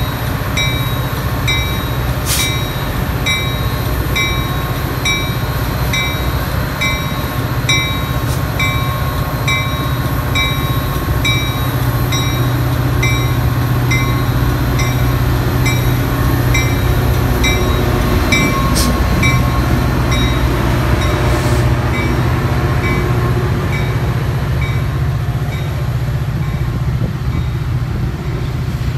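A diesel train running past on the line with a steady low rumble. Over it a regular ding repeats nearly twice a second and fades out about halfway through.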